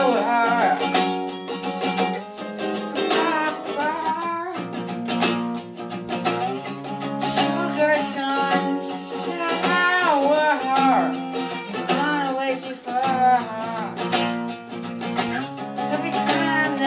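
Acoustic guitar strummed and picked with a voice singing over it, a live solo vocal-and-guitar performance.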